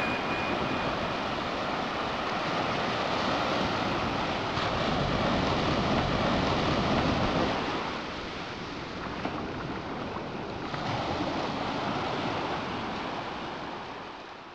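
Sea waves washing onto a beach, a steady rushing that swells and eases, with wind buffeting the microphone; it fades out near the end.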